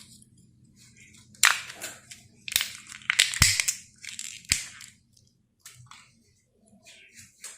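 Kinder egg packaging being opened by hand: a run of loud crinkling and cracking crunches through the first half, then only faint rustling.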